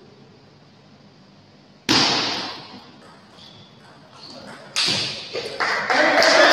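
Two loud thuds about three seconds apart, each ringing on in a large hall, followed by a run of sharper knocks and a louder, denser din building near the end.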